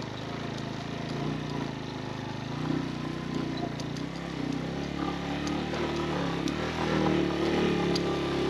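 Motorcycle engine running under way on a rough off-road track, its note wavering up and down and rising somewhat past the middle, with occasional faint clicks and rattles.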